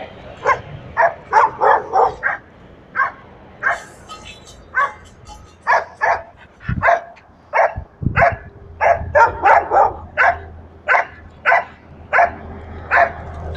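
Dog barking over and over, short sharp barks coming one to three a second without a break.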